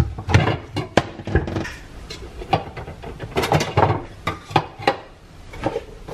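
Kitchen containers and jars being picked up and set down on a countertop: an irregular run of clinks and knocks.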